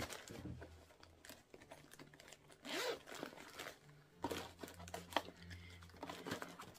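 Packaging crinkling and rustling as items are rummaged through and handled, with small clicks and knocks and one louder rustle about three seconds in.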